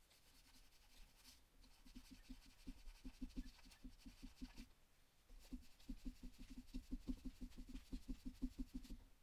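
Quick back-and-forth scrubbing on a plastic toy figure, about five or six faint strokes a second, with a short pause around the middle: blue ink marks being rubbed off.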